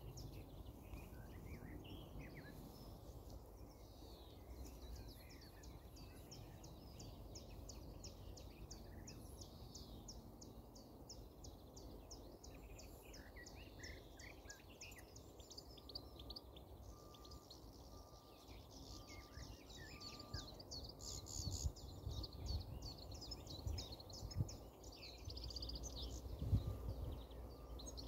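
Small birds calling and singing in short chirps and phrases over a low rumbling background. A fast, even high ticking runs through the first half, and a few low thumps come near the end.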